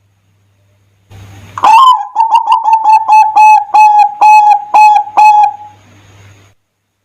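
Zebra dove (perkutut) song. A rising opening note leads into a run of about a dozen quick, clipped coos, about three a second, that stop about five and a half seconds in. A low hum and faint hiss sit under the call.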